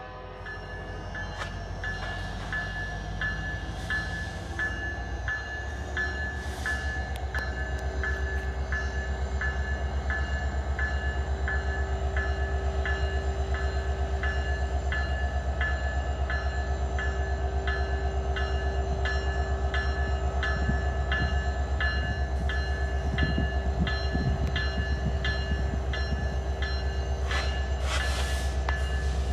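Alaska Railroad diesel locomotive running with a low rumble that builds over the first several seconds as the train pulls out. A bell rings steadily over it, about one and a half strokes a second.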